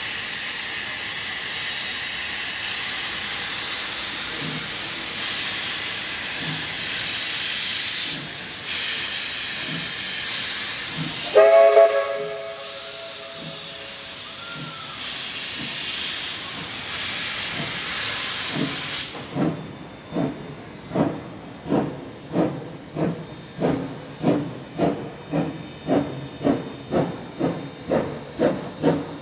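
Queensland Railways BB18¼ class steam locomotive: a steady hiss of steam, a short blast of its whistle about twelve seconds in, then from about two-thirds through its exhaust chuffs as it works, about two beats a second and quickening.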